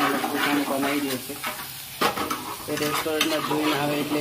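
Onion and garlic frying in oil and ghee in a pan, sizzling steadily while a spoon stirs and scrapes through them. A low pitched tone comes and goes in short stretches over the sizzle.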